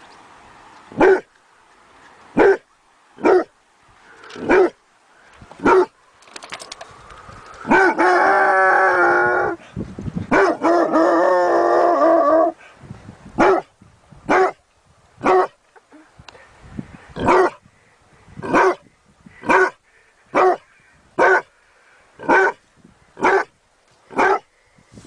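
A dog barking in single, separate barks, roughly one a second, with two long howls of about two seconds each in the middle.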